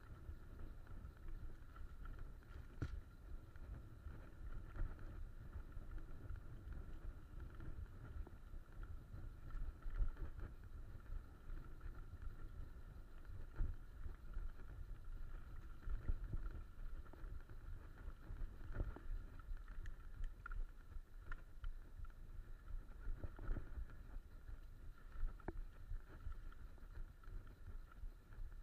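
Mountain bike rolling fast over a dirt trail: a steady low rumble of wind and tyre noise on the microphone, broken by scattered knocks and rattles as the bike hits bumps.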